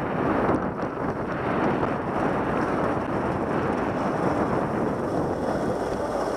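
Wind rushing over a helmet-mounted Contour camera's microphone while skiing downhill, a steady hiss mixed with skis sliding on packed snow.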